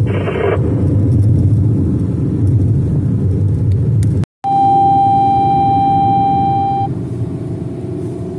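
Steady low rumble of a car driving on the road, heard from inside the cabin, with a brief rush as an oncoming pickup truck passes at the start. About halfway through, the sound cuts out for an instant, then a steady electronic tone sounds for a couple of seconds and stops.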